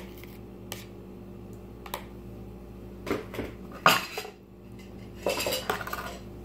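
Metal pan and kitchenware clattering: a couple of light clicks, then scraping and a sharp clank about four seconds in, and more rattling near the end.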